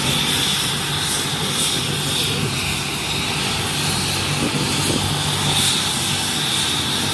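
Helicopter running on the ground, a steady engine whine over a continuous low rumble.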